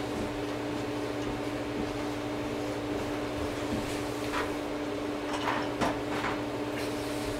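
A steady electrical hum with one even tone, and a few short scratchy noises in the second half.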